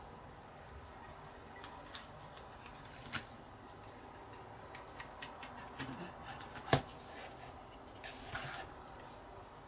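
Small clicks and taps of metal tweezers and fingers against a plastic model hull as masking tape is picked and peeled off, with one sharper tap about two-thirds through and a short rustle about eight seconds in.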